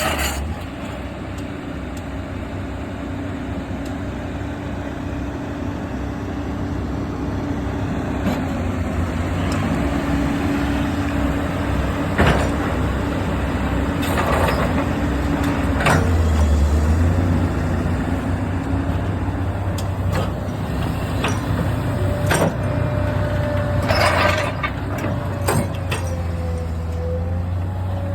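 Heavy diesel engine running steadily, a little louder in the middle, with several short sharp noises over it.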